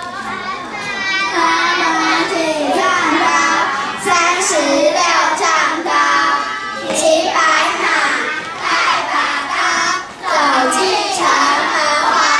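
A group of young children singing together, loud and lively, with a brief pause about ten seconds in.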